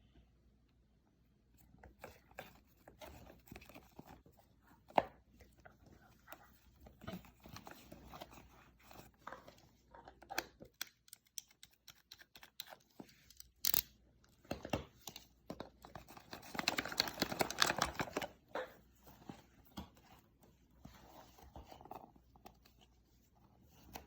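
Food being torn and chewed: irregular tearing, crunching and wet chewing sounds, with a denser stretch of rustling and crackling about two thirds of the way through.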